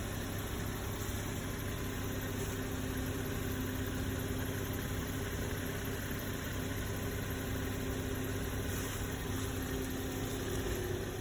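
Opel Mokka 1.8-litre engine idling cold, with a steady squeak over the idle that the owner is unsure may be a whistle; the squeak comes in about two seconds in and fades near the end.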